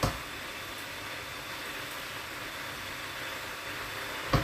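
Steady hiss with a short thump at the very start and another, louder thump near the end.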